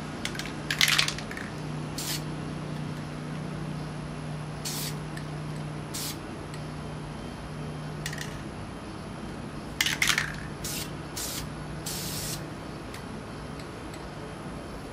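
Aerosol can of Krylon spray paint giving about ten short hissing bursts spaced unevenly, with one longer burst late on. A steady low hum runs underneath.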